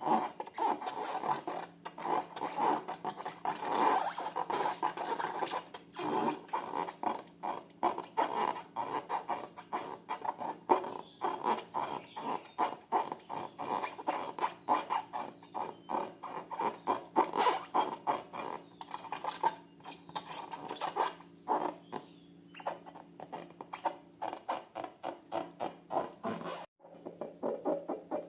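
Slime and balloons handled by hand: a dense, irregular run of crackles, squishes and rubbing clicks, over a faint steady low hum.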